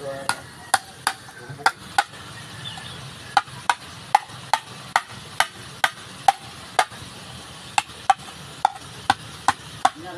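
A stone being struck against a rock in a long series of sharp knocks, about two to three a second, with a short pause about two seconds in.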